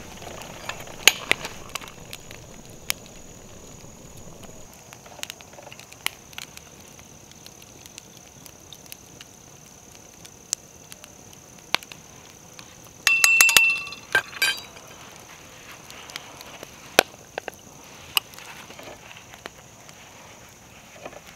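Scattered clicks and clinks of freshly cast lead round balls being handled and trimmed with a knife on a stone, with a short run of louder, ringing metallic clinks about two thirds of the way through.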